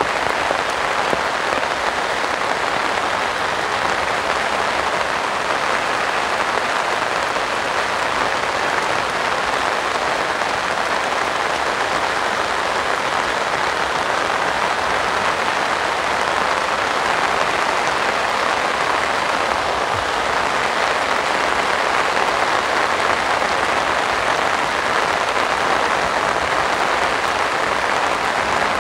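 Heavy rain pouring down steadily: a dense, even hiss of raindrops with no letup.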